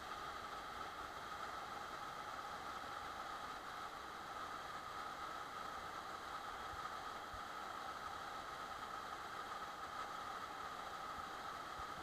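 Steady rush of a small forest waterfall and stream cascading over rocks.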